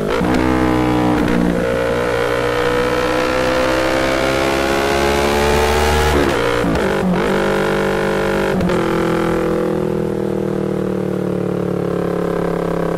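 Yamaha MT-25's parallel-twin engine running through an R9 full exhaust, heard from the rider's seat in a road tunnel. The revs climb slowly for about six seconds, then a few short breaks make the pitch jump as gears are changed, and the engine settles into a steady run.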